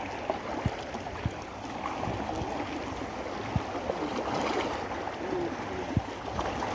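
Small sea waves lapping and gurgling among shoreline rocks, with a few soft knocks.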